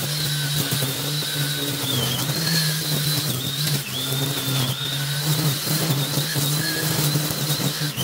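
Battery-powered strimmer running steadily with a high motor whine, its pitch dipping briefly a few times as the line bogs down cutting through soaking-wet long grass.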